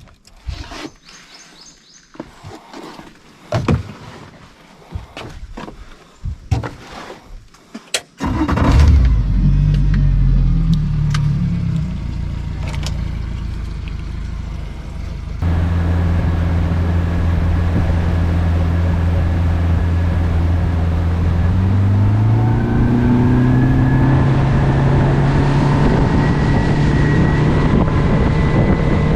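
A series of knocks and clicks, then about eight seconds in a boat's outboard motor starts and runs steadily. From about two-thirds of the way through its pitch climbs as it is throttled up and the boat gets under way.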